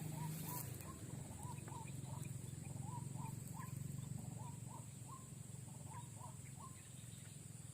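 A bird calling repeatedly in short chirps, about three a second, faint.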